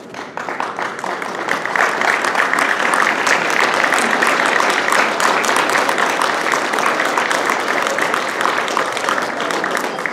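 Audience applauding, many hands clapping together. The applause swells over the first two seconds and then holds steady.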